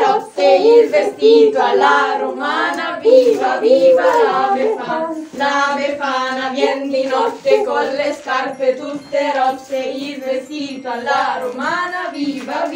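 Accordion playing a lively tune while a group of voices sings along.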